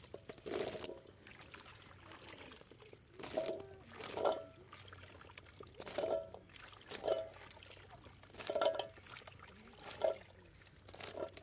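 Diced green papaya being stirred with a spatula in a large metal pot: about eight wet scraping strokes, a second or so apart, with a brief metallic ring as the spatula scrapes the pot.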